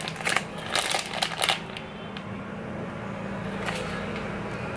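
Plastic packaging rustling and crinkling as it is handled, a few short crackles in the first second and a half, then a steady low hum.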